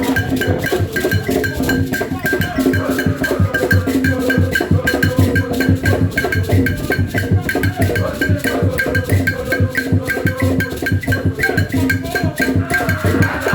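Music with a busy, fast percussion beat of woodblock-like clicks and drums over sustained instrument lines, played loud through a PA sound system during a sound check.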